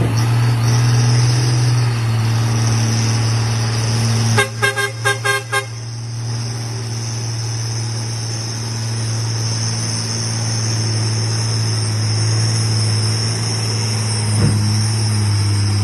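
Heavy truck's diesel engine running steadily, pulling a heavy load uphill. Just over four seconds in, a vehicle horn gives a rapid series of short toots lasting about a second.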